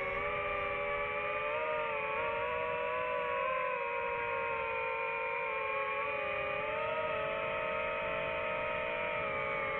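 DJI FPV drone's motors and propellers whining steadily: several close tones that drift slightly up and down in pitch as the throttle shifts.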